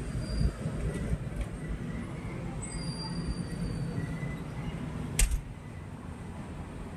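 City street traffic heard from high up: a steady, unsettled low rumble with thin high squeals drifting over it, and one sharp click about five seconds in.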